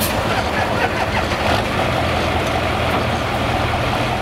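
Diesel pulling pickup's engine idling steadily at a standstill, the sled still hooked behind it at the end of its pull.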